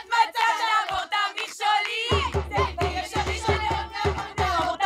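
A group of female voices singing a song together; a steady low drum beat drops out at the start and comes back in about two seconds in.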